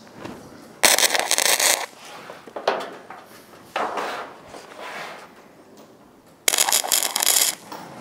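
Two short welding tacks on the steel roof seam, each about a second of crackling, buzzing arc: one about a second in and one near the end.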